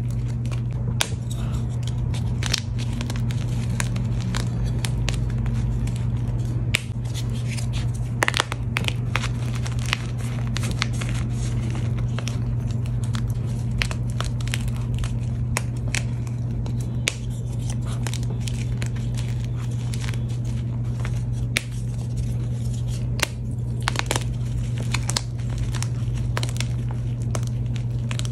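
Reformed gym chalk being crushed and crumbled by hand: a dense run of irregular crunchy crackles and sharp snaps as the hard chalk chunks break into grit, over a steady low hum.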